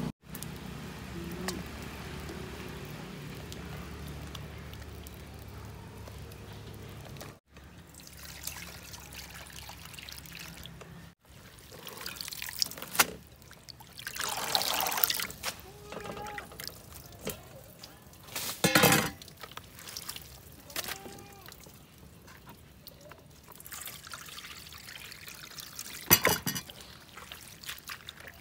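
Boiled cassava leaves rinsed by hand in a steel bowl of water: water splashing, trickling and dripping as the leaves are squeezed and lifted, with a few louder splashes. A steady low hum fills the first quarter, before the washing starts.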